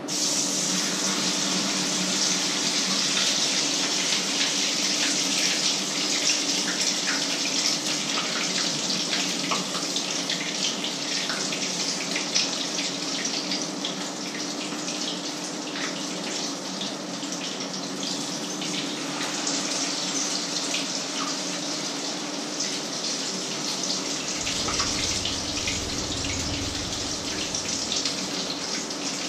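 Food frying in hot oil in a pan on the stove: a steady loud sizzle with dense fine crackling. It starts suddenly at the beginning, as food goes into the oil, and eases off a little later on.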